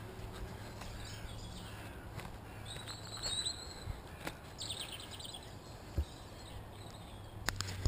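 Birds singing: a few short high chirps about three seconds in, then a quick run of repeated high notes, over a steady low background noise. A few faint knocks near the end.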